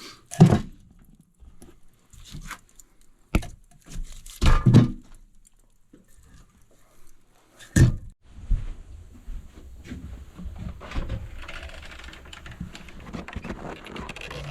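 Heavy thuds and knocks of someone moving about and handling things in a small room, the loudest about half a second in, then two more a few seconds apart; after that a steadier low rumble with rustling.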